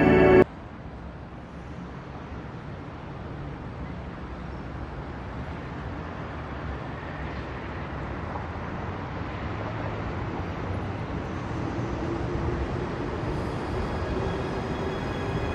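City ambience: a steady rumble of distant traffic that slowly grows louder, after music cuts off abruptly about half a second in. Faint held music tones come back in near the end.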